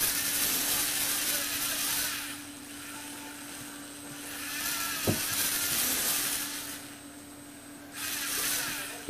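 Lego Technic electric motor driving the gear train of a scissor lift, whirring in three runs of about two seconds each, with a sharp click about five seconds in.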